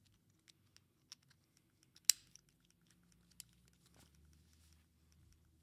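Faint clicks and rustles of a dog shock collar being handled as its strap is fastened around a neck, with one sharper click about two seconds in.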